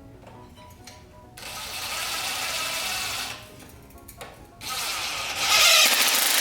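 Background music, with a power tool running in two stretches of about two seconds each, the second one louder.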